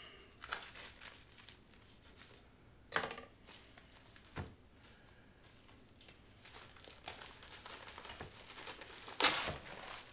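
Plastic wrap being peeled off a frozen pizza, crinkling and rustling, with sharp crackles about three seconds in and again near the end, and a soft knock about four and a half seconds in.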